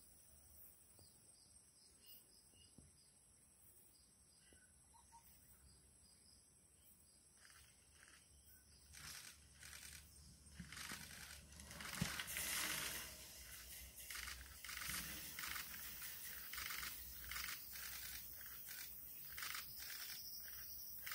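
A steady insect chirr with a few faint bird chirps. From about nine seconds in, a run of crunching, tearing and rustling like leaves and branches being crushed, with one sharp crack about twelve seconds in.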